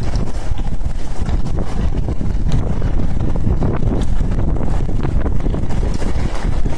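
Heavy rain pouring onto wet pavement, with wind buffeting the phone's microphone in a loud low rumble and scattered sharp taps.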